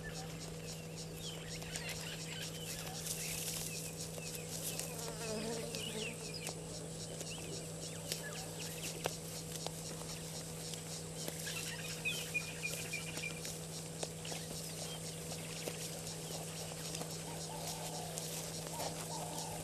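Bushveld waterhole ambience: insects buzzing and ticking steadily, with scattered bird calls over a constant low hum and a few sharp clicks.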